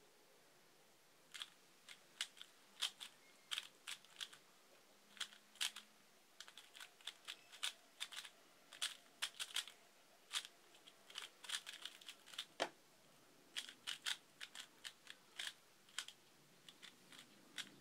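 Valk 3 3x3 speedcube's plastic layers being turned fast in a solve: an irregular run of sharp clicks and clacks, with one heavier tap about two-thirds through as the hand hits the phone timer to stop it, then more scattered clicks.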